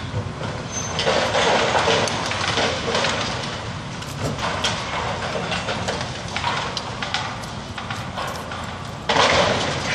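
Demolition debris from a brick building clattering and crumbling down: a dense run of knocks and rattling rubble, loudest about a second in and again near the end.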